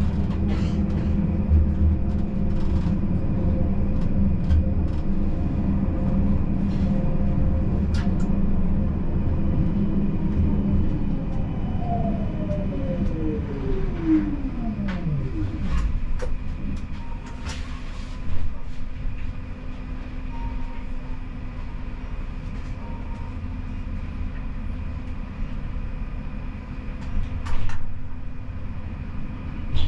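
Siemens Combino tram running with a steady hum, its traction-motor whine falling in pitch as it brakes to a stop about halfway through. It then stands with a quieter steady hum, broken by a few short beeps and light clicks.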